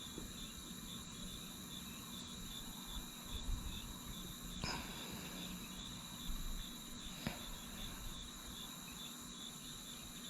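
Steady chorus of insects, a high shrill drone with an even pulsing rhythm. Two brief sharp clicks about halfway through.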